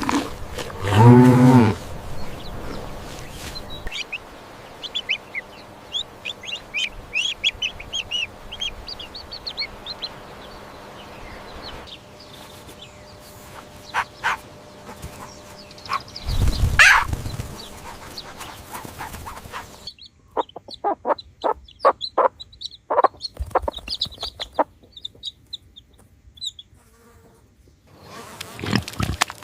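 Farmyard chickens: a rooster crowing and hens clucking in quick short calls, with high quick chirps from birds or chicks. A low drawn-out animal call with a deep pitch opens the sequence about a second in.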